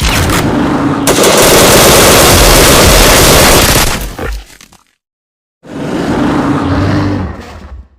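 Loud sound-effect burst of rapid machine-gun fire lasting about four seconds, cutting off sharply, then a second shorter burst after a brief gap.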